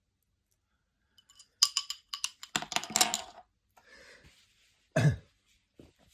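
Crossbow bolts and small parts being handled: a run of light clicks and clatters, then a single short thump about five seconds in.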